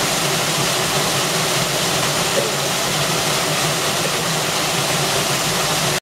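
Small warm-spring waterfall pouring into a rock pool: a steady rush of falling water.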